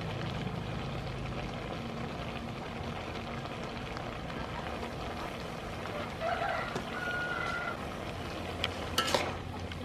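Razor clam and pineapple stir fry cooking in a wok over a wood fire, a steady sizzle over a low rumble. Near the end a spatula scrapes against the wok as the pineapple is stirred in.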